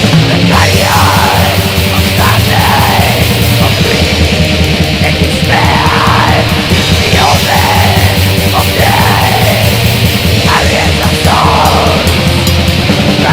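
Black metal recording: distorted guitars and fast, dense drumming, loud and unbroken, with a harsh screamed voice sweeping up and down over it.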